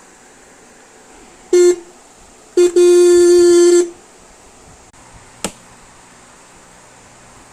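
Car horn honking twice: a short blast, then a longer one lasting a little over a second. A single sharp click follows a couple of seconds later.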